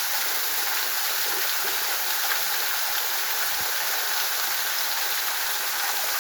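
River water rushing and splashing over rock at a waterfall: a steady, even hiss of white water.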